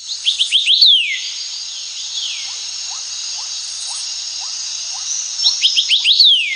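A phone ringtone made of recorded birdsong. A run of quick rising chirps ends in a falling whistle over a steady hiss, and the phrase repeats about five seconds later.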